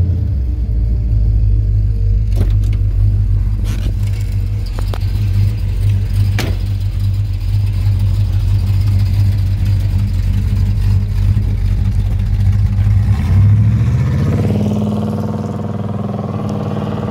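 1967 Pontiac LeMans's 400 V8, breathing through headers and a dual exhaust with performance mufflers, running with a steady low exhaust rumble. About fourteen seconds in it revs up, rising in pitch as the car accelerates away.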